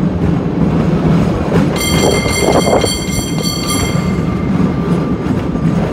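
San Francisco cable car running up its track with a steady low rumble and clatter. About two seconds in, a high-pitched metallic squeal sets in for around two seconds, then fades to a fainter lingering tone.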